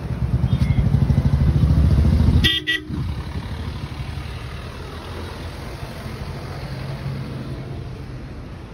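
A bus engine running loudly close by, then a short horn toot about two and a half seconds in; the engine runs on more quietly afterwards.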